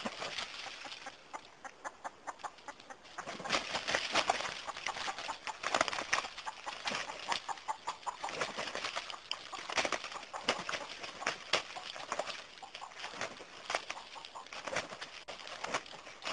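A rooster and ducks fighting: wings flapping and feet scuffling in dry leaves in quick irregular bursts, busier from about three seconds in, with some clucking.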